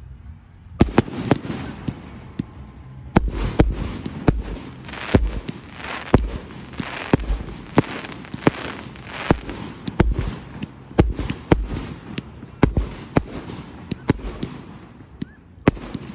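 Fireworks display: aerial shells bursting in rapid succession, many sharp bangs about one or two a second with crackling between them. The bangs start about a second in, after a brief lull.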